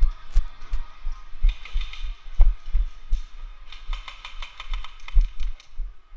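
Repeated dull, low thumps at an uneven pace of two or three a second, as of a player moving with the camera on him, with scattered sharp clicks.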